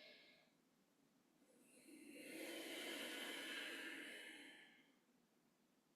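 A person taking a long, deep, audible breath that swells and fades over about three seconds, with the tail of a previous breath at the very start.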